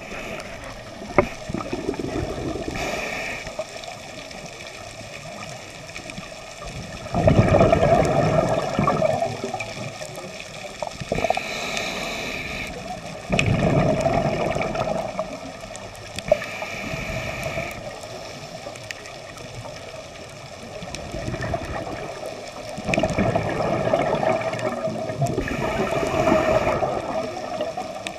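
A scuba diver's regulator breathing underwater: a short hiss on each inhale and a longer burst of bubbling on each exhale, repeating slowly every five to seven seconds.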